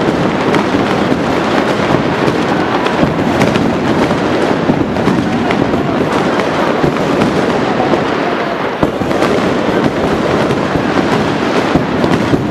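A dense, continuous barrage of distant aerial fireworks, the bursts blending into a steady rumble with many sharp cracks on top. It is a high-density display firing well over a hundred shells a second.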